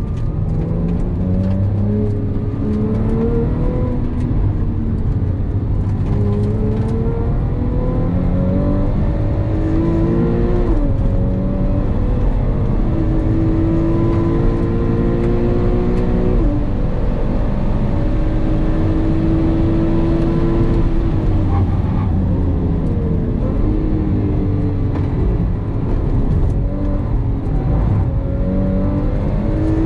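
Porsche 911 997 GTS's 3.8-litre flat-six, heard from inside the cabin, lapping a race track: revs climb repeatedly under acceleration and fall back on lifts and shifts, with stretches held steady through faster sections, over constant road and tyre rumble.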